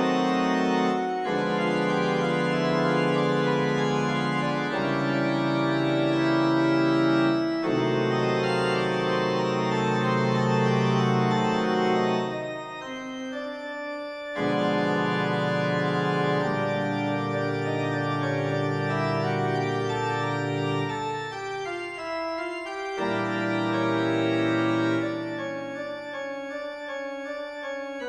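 Organ music playing sustained chords that change every few seconds. It drops quieter for a moment about halfway through and turns softer near the end.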